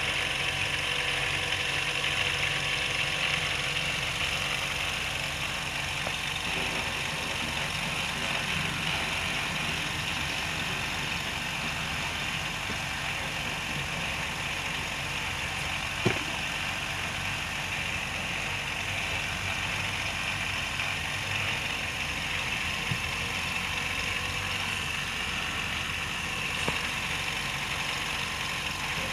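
A steady machine hum, like a motor or engine running, unchanging throughout, with one sharp click about halfway through.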